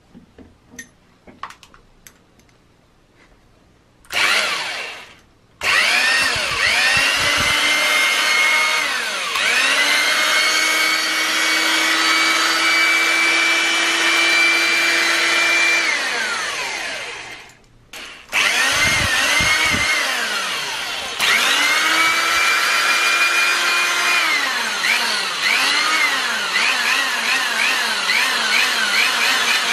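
Vintage corded electric drill converted into a bottle-cap tightener, run by its trigger. After a few light handling clicks, the motor spins up with a rising whine, holds at speed for several seconds and winds down. It is started again, and near the end the trigger is pulsed so the speed rises and falls several times in quick succession.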